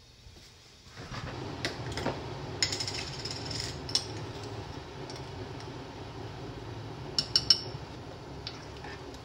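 Small measuring spoon clinking and scraping against a bottle and a pan as kombu dashi powder is scooped out and stirred into sliced onion and mushrooms, with a few sharp clinks about seven seconds in. Under it, from about a second in, runs a steady low rushing noise.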